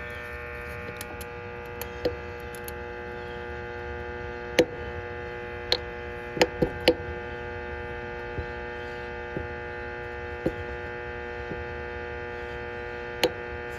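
Steady electrical mains hum from the AC condenser's contactor, a hum the technician flags as a sign the contactor is due for replacement. Several sharp clicks sound over it, most bunched between about five and seven seconds in.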